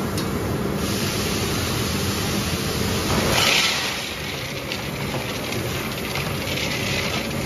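Electric-heated jacketed cooking mixer running, its motor-driven paddle stirrer turning through hot toffee with a steady mechanical hum and hiss. About three seconds in, a brief louder rush as a bag of peanuts is poured into the pan.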